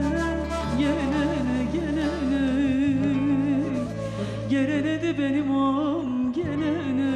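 A woman singing a Turkish folk song in a slow, heavily ornamented line with a wide vibrato and held notes, over an instrumental ensemble's sustained low accompaniment.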